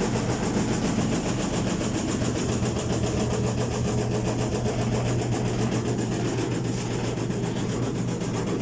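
Washing machine running with a steady hum and a fast, rhythmic knocking as the wobbling tub strikes the cabinet's sheet metal; the cause is a suspension spring that has come loose.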